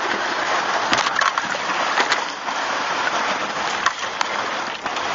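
Water splashing and sloshing as a jon boat is hauled over a floating debris boom, with a few sharp knocks.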